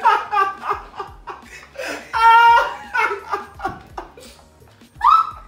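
Several young people laughing hard, with a long high-pitched laugh about two seconds in.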